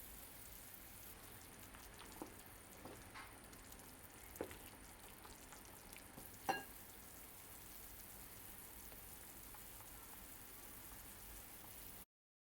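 Food cooking in a pot with a steady hiss, with a few light clinks; the loudest clink comes about six and a half seconds in, and the sound cuts off suddenly just before the end.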